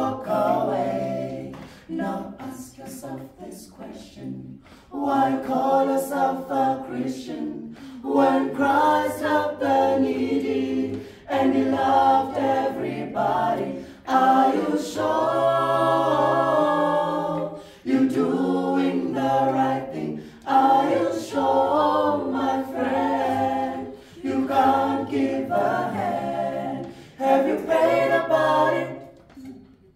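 Small mixed a cappella group of men and women singing a sacred song in harmony without instruments, in phrases broken by short pauses for breath. The singing is softer for a few seconds near the start.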